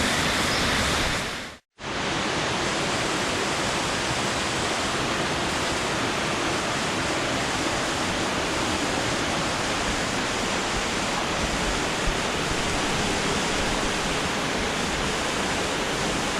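Waterfall running: a steady rush of falling water, briefly fading to silence and back about one and a half seconds in.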